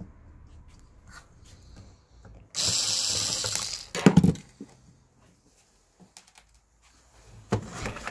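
Plastic instrument cluster housing and circuit board being handled on a workbench: a harsh noise lasting about a second and a half, then a sharp clatter of knocks as the housing is set down and turned over, with another clatter near the end.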